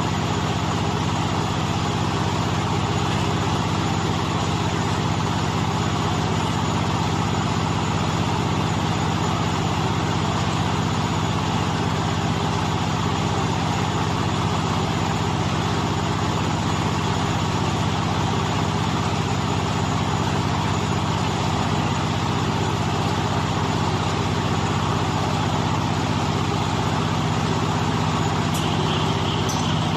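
Silage baler machine running steadily, a constant mechanical hum with a steady low drone and no change in speed.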